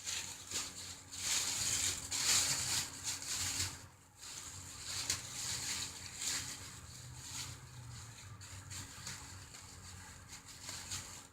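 Irregular rustling and handling noise, louder through the first four seconds, then softer after a brief lull.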